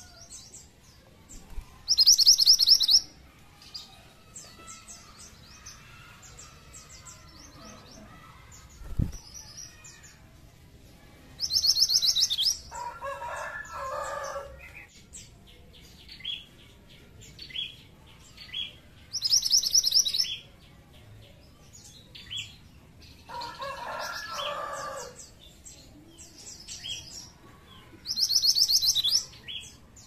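Minivet (burung mantenan) singing: loud, very rapid high trills of about a second each, four times, with softer short chirps between them. Twice a lower, harsher call of about two seconds follows a trill, and there is one dull thump near the middle.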